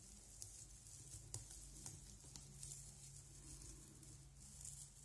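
Near silence: faint room tone with a low steady hum and a few soft ticks.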